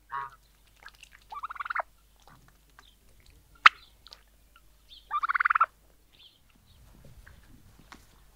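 Domestic turkey gobbling twice, each a loud, rapid rattling call about half a second long, one about a second in and one about five seconds in, with a shorter call right at the start. A single sharp click, the loudest sound, falls between the two gobbles.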